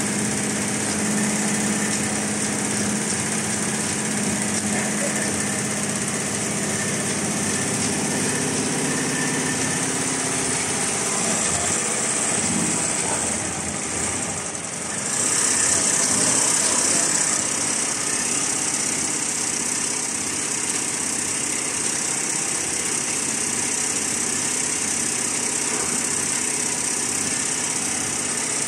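Multi-head Richpeace computerized embroidery machine running, its needle heads stitching at speed with a steady mechanical whir. The level dips briefly about halfway, then rises for a couple of seconds.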